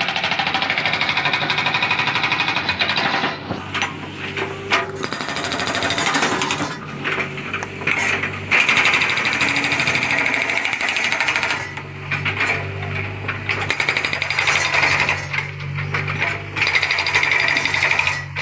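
Hydraulic breaker on a Hyundai R35Z-9 mini excavator hammering rapidly into a concrete lane surface, in long runs broken by short pauses. The excavator's engine runs steadily underneath and grows louder in the second half.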